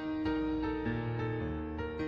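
Slow instrumental background music with held notes over a low bass line.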